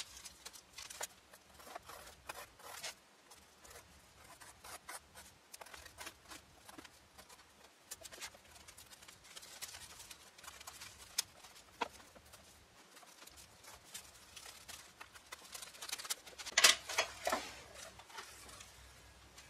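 Paper pages of a dictionary being cut out one after another: faint, irregular scratchy cutting strokes and rustling paper, with a louder run of strokes near the end.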